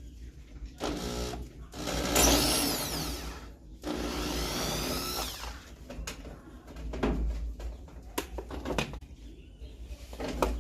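A power drill or screwdriver spinning in several short bursts of about a second and a half each, its pitch sliding as it runs, while screws come out of a washing machine being taken apart. Short clicks and knocks of parts being handled fall between the bursts.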